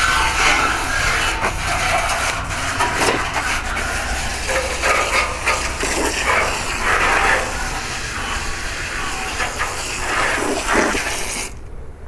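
Garden hose spray nozzle hissing steadily as water is sprayed, cutting off suddenly near the end, with a steady low hum underneath.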